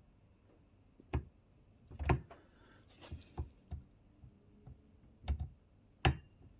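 Scattered light clicks and knocks, about one a second, as the drive shaft is twisted by hand at its universal joint. The knocks are the slight play in a worn UJ.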